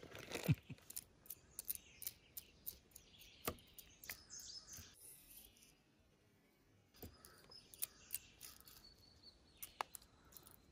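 Quiet, scattered clicks and crinkles of food being handled: a clear plastic zipper bag pulled open, then a knife and fork clicking as they cut a boiled egg on a paper towel. About halfway through it drops to near silence for a second or two.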